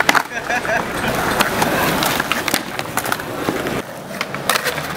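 Skateboard wheels rolling on concrete, with several sharp clacks of the board popping and landing during flatground tricks, over the voices of an onlooking crowd.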